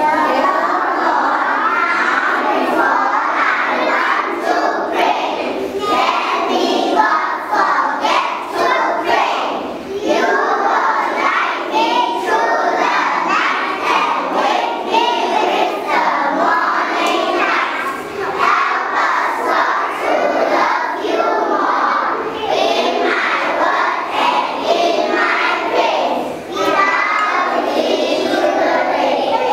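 Many young children's voices together, praying aloud as a group.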